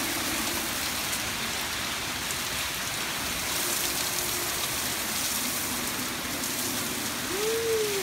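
Heavy rain pouring down steadily in a windstorm. Near the end a single tone rises and then falls away.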